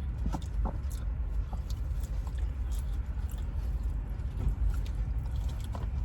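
Someone eating: faint chewing and scattered light clicks of a fork over a steady low hum.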